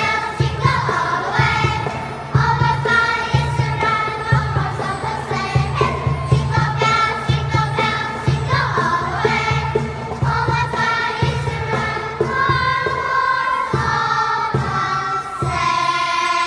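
Children's choir singing a Christmas song together, over accompaniment with a steady low beat.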